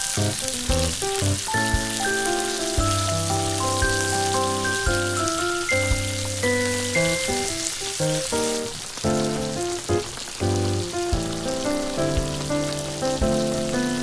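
Background music with a steady beat and a melody of short notes, over a steady hiss that fades out near the end.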